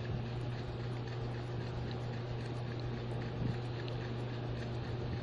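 Faint crinkling of plastic cling wrap being peeled off a ball of dough, over a steady low electrical hum.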